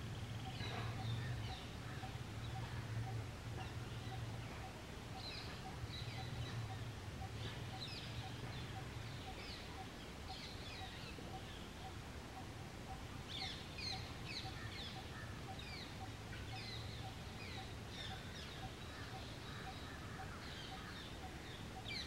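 Birds chirping outdoors: many short, falling chirps from several birds, scattered irregularly with busier spells about five and thirteen seconds in. Under them, a soft note repeats about twice a second, over a low hum that fades about nine seconds in and comes back later.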